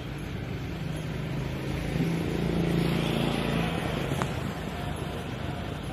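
A motor vehicle passing on the street. Its engine hum swells to a peak about two to three seconds in, then fades back into steady outdoor background noise.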